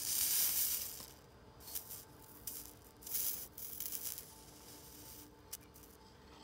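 Soldering iron sizzling on flux and solder, a hiss that fades out about a second in, followed by a few short, faint sizzles.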